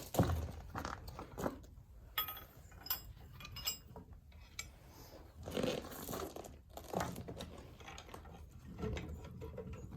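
Irregular metallic knocks, scrapes and clinks as the heavy cylinder head of a Rumely 6A tractor engine is pried and worked up its rusty studs, with a brief metallic ring about two to four seconds in.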